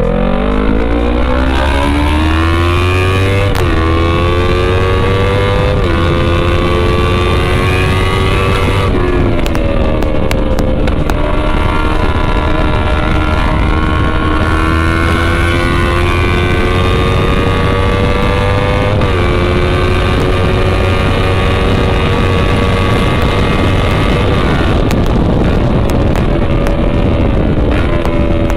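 Kawasaki Versys motorcycle running on a bare exhaust pipe with the muffler removed, ridden under power. Its engine note climbs and drops sharply several times as it shifts up through the gears, then rises slowly through a long pull in a higher gear and eases off near the end.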